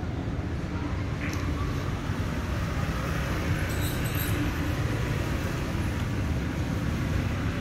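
Steady low outdoor background rumble, with a faint click about a second in.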